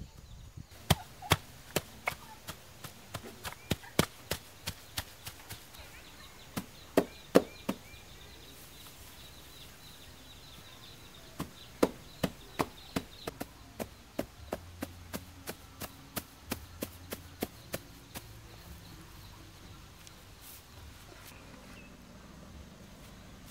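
Repeated sharp slaps of a hand patting down soil to bed grass sods into the ground, about three a second, in two runs with a pause of a few seconds between them.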